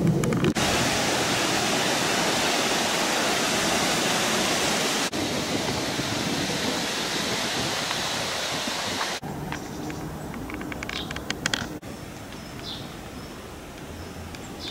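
A loud, steady rushing noise that cuts off abruptly about nine seconds in. It gives way to quieter outdoor ambience with faint ticking and one brief high chirp.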